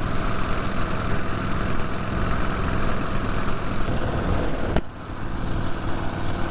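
Vintage motorcycle engine running under way, with wind rushing over the microphone. The level drops sharply for a moment just under five seconds in, then the same sound carries on. The rider fears that water is getting into the fuel.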